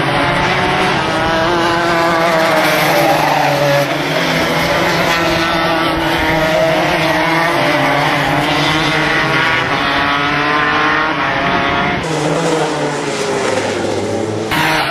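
Racing karts' small engines running hard around the circuit, several at once, their pitches rising and falling as they accelerate and back off through the corners. The sound changes abruptly about twelve seconds in and again near the end.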